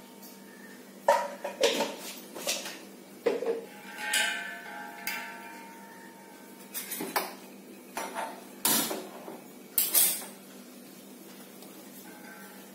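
Metal cookware clanking: the steel pressure cooker and its lid knocked and handled on the gas stove, about ten separate clanks spread out, one ringing on for about a second around four seconds in.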